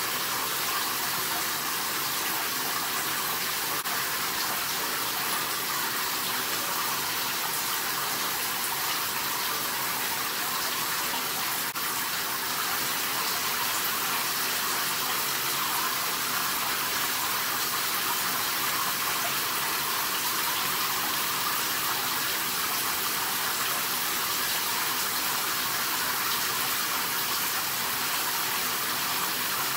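Running water, a steady even hiss with a faint low hum beneath it.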